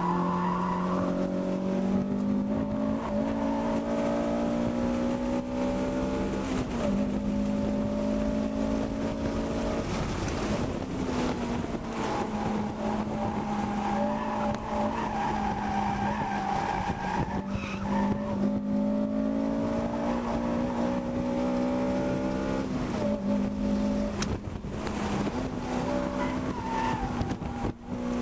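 A Honda Civic Si FA5 sedan's 2.0-litre four-cylinder engine heard from inside the cabin at track pace, its pitch climbing steadily under throttle and dropping with each gear change, several times over.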